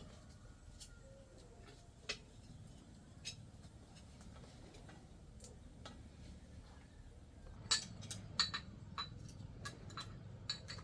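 Sharp light clicks and clinks: a few scattered ones, then a quicker run of louder clicks near the end.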